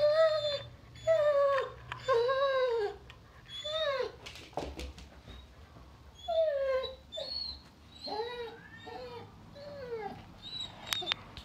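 Doberman puppy whining and crying over and over with a new chew treat in its mouth: a string of high, rising-and-falling whines, with a short pause midway.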